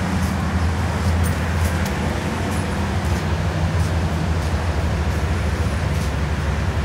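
Steady low hum and rumbling background noise, with faint high ticks now and then.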